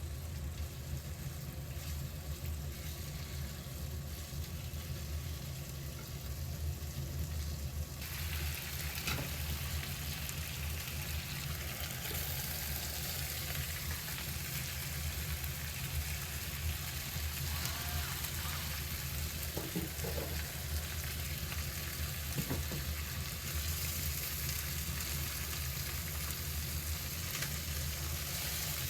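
Food sizzling in a frying pan, the sizzle starting suddenly about eight seconds in and then running steadily, over a low hum.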